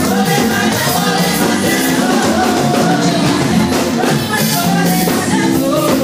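Children's choir singing through a microphone over amplified instrumental accompaniment with a steady beat, loud and continuous.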